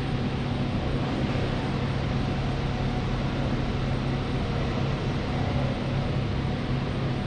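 Steady airport terminal background noise: a constant low hum under an even wash of noise, with no single event standing out.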